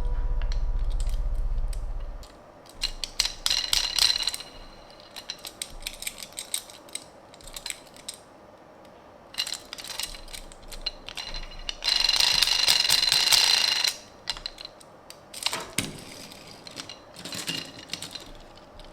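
Close handling of a die-cast toy car and its packaging: scattered clicks and taps with short bursts of rustling, the longest lasting about two seconds just past the middle.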